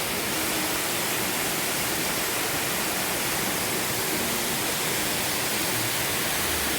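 Waterfall rushing: a steady, even roar of falling water with no break.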